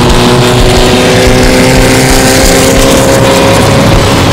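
Air-cooled flat-four engine of a VW Beetle running loud as the car drives, its pitch rising slowly and steadily as it accelerates.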